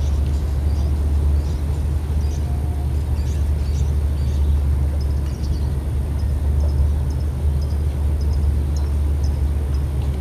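Steady low rumble, with faint short high chirps from birds scattered throughout.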